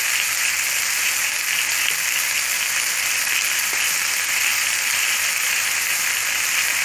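Boneless chicken pieces, onion and green capsicum sizzling steadily in oil in a frying pan.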